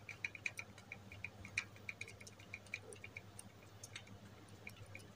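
Old bicycle dynamo spun slowly by hand, giving a quick run of faint ticks that thin out and slow toward the end as the turning eases off.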